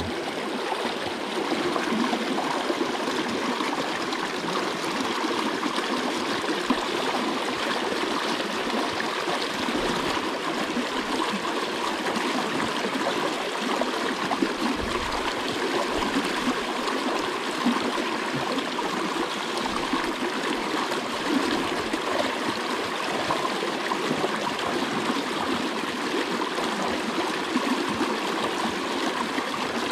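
Water rushing and splashing steadily where a culvert's outflow pours into a river.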